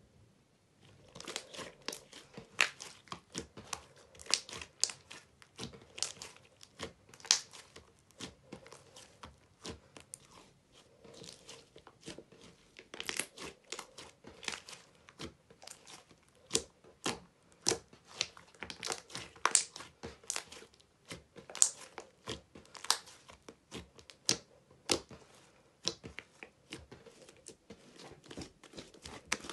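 Red glittery slime being stretched, pressed and folded by hand, making quick irregular clicks and pops that start about a second in.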